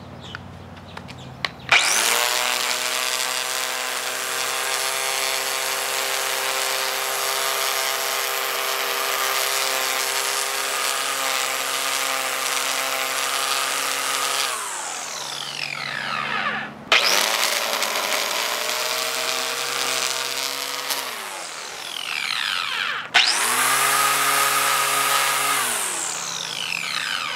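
Black & Decker corded electric string trimmer, turned over to work as an edger, cutting an overgrown grass edge along concrete. The motor starts with a sharp whine about two seconds in, runs steadily for about twelve seconds, then spins down with falling pitch. It is started twice more for short runs, each ending in a spin-down.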